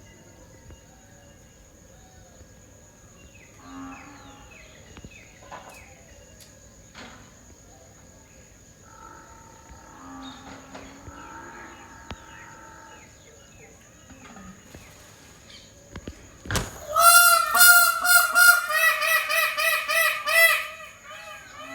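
Peacock calling loudly in a rapid series of short, honking notes for about four seconds near the end, just after a sharp click. Fainter bird calls come before it.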